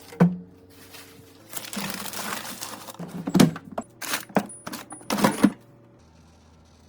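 Groceries being handled and put away: a paper bag rustling for about a second, then a quick run of sharp clinks and knocks from items being set down.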